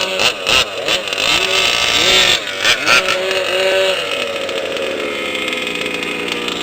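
Small two-stroke engines of gas-powered 1/5-scale RC off-road trucks revving up and down repeatedly, with a few sharp knocks in the first three seconds, then running on at a steadier, slowly falling pitch.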